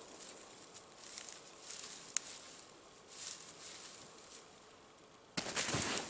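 Spruce boughs rustling and twigs crackling as they are handled and packed onto a frame, with one sharp twig snap about two seconds in and a louder rush of rustling branches near the end.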